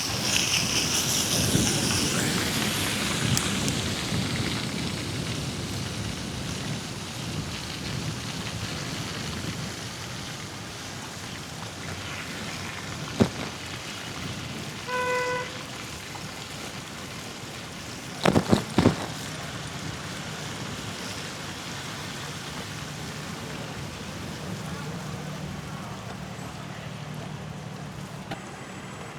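Bicycle ride on wet, slushy city streets: a steady wet hiss of tyres and wind, loudest in the first few seconds. A sharp knock comes about 13 seconds in, a short single-pitched beep at about 15 seconds, and three quick knocks at about 18 to 19 seconds.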